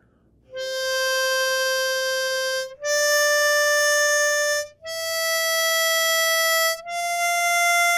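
Diatonic harmonica playing four long held single notes that rise step by step, C, D, E, F: hole 4 blown and drawn, then hole 5 blown and drawn. Each note lasts about two seconds, with short breaks between them.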